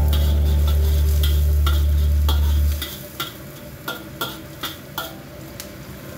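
Spatula scraping and tapping against a carbon-steel wok while stir-frying, with a light sizzle: sharp, ringing taps about two or three times a second. A loud low hum runs under the first three seconds and then cuts off suddenly.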